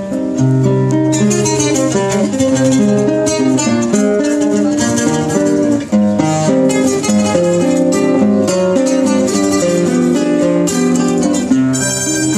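Two acoustic guitars playing an Argentine tango, a plucked melody moving over held bass notes.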